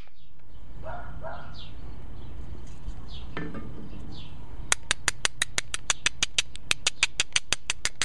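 A hammerstone taps rapidly against the edge of a flint biface: sharp stone-on-stone clicks at an even pace of about six a second, starting a little past halfway. Earlier, a bird gives a few short falling calls.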